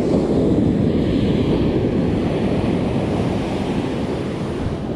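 Surf breaking and washing up a sandy beach, with wind buffeting the microphone as a steady low rumble.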